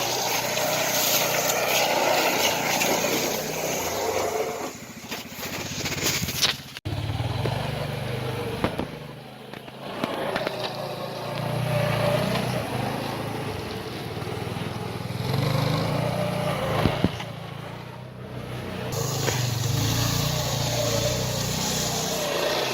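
Small 120-class snowmobile engine running, growing louder and fading several times as it revs and rides past. The sound breaks off abruptly about seven seconds in and picks up again.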